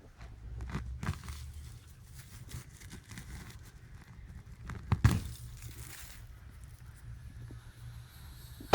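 Digging in garden soil: scraping and dull thuds of a digging tool going into the dirt, the loudest strike about five seconds in, over a steady low rumble.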